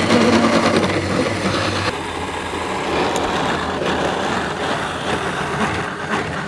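Power tool cutting through the van's sheet-metal side wall: a loud, steady motor-and-cutting noise that changes abruptly about two seconds in.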